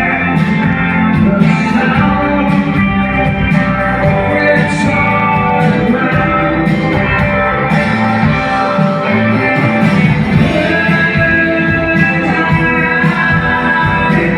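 A rock band playing live, with electric guitars and singing, recorded from the audience.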